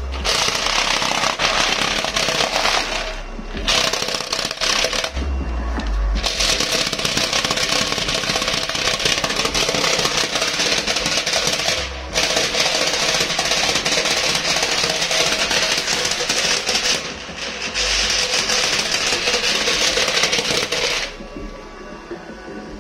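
A sheet of paper fluttering and rattling rapidly in the air pumped out of a subwoofer box's port, driven by deep bass from a Cerwin Vega H7104D 10-inch subwoofer. The rattle breaks off briefly three times and stops about a second before the end, leaving the bass playing on its own.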